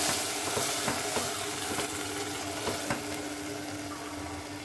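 Boiled peas sizzling in hot oil and tomato purée in a nonstick pot while a wooden spatula stirs them, giving a few light scrapes and taps. A steady hum runs underneath.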